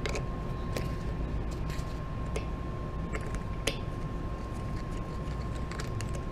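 Tire being inflated from a shop air line through a valve stem with its core removed: a steady rush of air, with scattered light clicks and taps.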